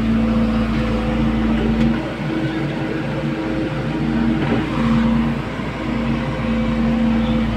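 SANY SY140 excavator's diesel engine running, with a steady hum whose pitch wavers and shifts from about two seconds in as the load on the machine changes.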